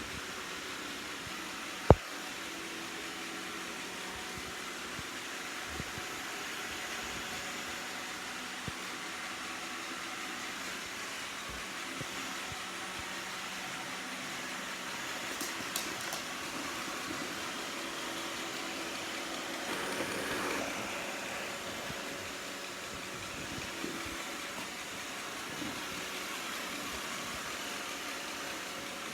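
iRobot Roomba 690 robot vacuum running, a steady whir of its motor and brushes, with one sharp click about two seconds in.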